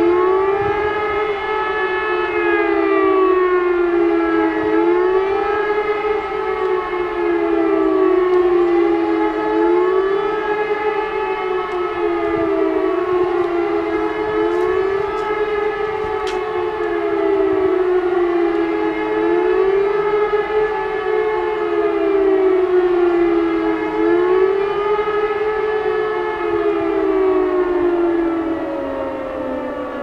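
Several E57 electromechanical civil-defence sirens sounding the 'Warnung' signal, a rising and falling wail whose pitch swings up and down about every four seconds, the sirens slightly out of step with one another. Near the end the pitch falls away steadily as the sirens wind down.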